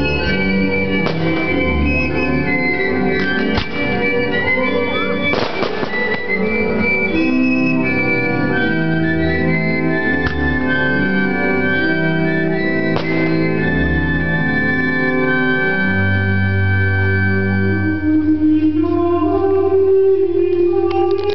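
Organ music playing held chords, with a deep bass note entering about three-quarters of the way through. Several sharp bangs of fireworks cut through the music, the densest crackle of them about five to six seconds in.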